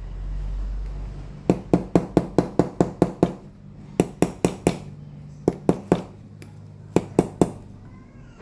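Small hammer tapping the steel jaws of a pair of cuticle nippers laid on a steel block, straightening a nicked jaw before sharpening. The taps are sharp and metallic and come in four quick runs: about ten, then four, three and three, at roughly five a second.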